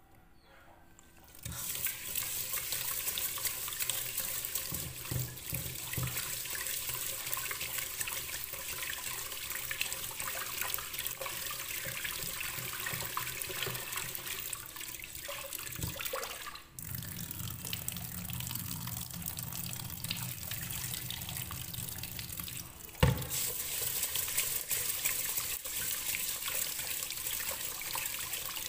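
Kitchen tap running into a pot of rice in a stainless steel sink as the rice is rinsed by hand, the water splashing steadily. It starts about a second and a half in, and there is one sharp knock near the end.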